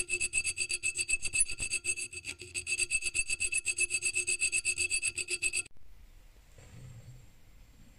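Hand file rasping back and forth in the slot of a brass tsuba (sword guard) clamped in a vise, in quick, even strokes with a thin, high ring under them. The filing stops about two seconds before the end.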